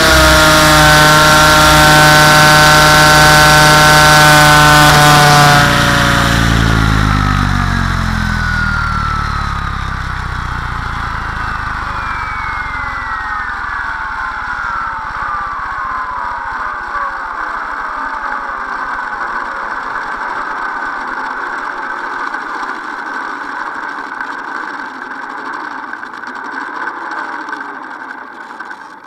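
Compass 6HV electric RC helicopter running at steady head speed with a strong motor whine. About six seconds in the power cuts, and the brushless motor and rotor spool down, the whine falling in pitch over about ten seconds. A steady whirr from the slowing rotor and drivetrain follows and fades out near the end.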